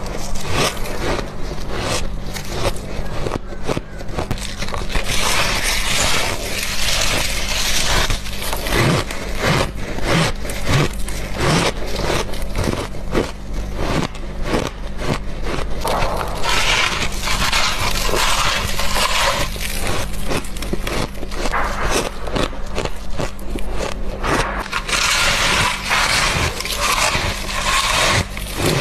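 Freezer frost being bitten and chewed close to a clip-on microphone: a dense run of crunches and squeaky crackles, rising into louder, hissier bouts of crunching three times.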